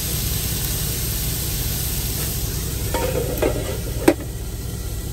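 Chicken pieces sizzling and frying in an electric skillet. About four seconds in, the skillet's glass lid is set on with a sharp clink, and the sizzle turns a little quieter under it.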